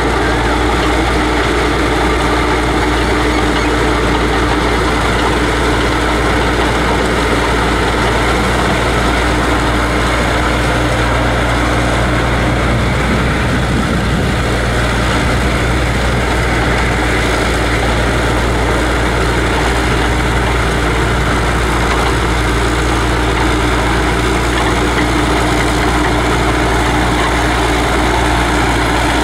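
Crawler paddy tractor's diesel engine running steadily under load while plowing a flooded rice field, a continuous low rumble with a constant hum.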